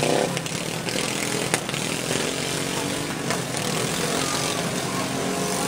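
Several stock riding lawn mower engines running and revving together, with a sharp knock about a second and a half in.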